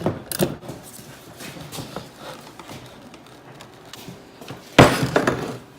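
Faint metal clicks of hand tools working on a motorcycle's rear wheel hub, then a loud clatter lasting about half a second near the end.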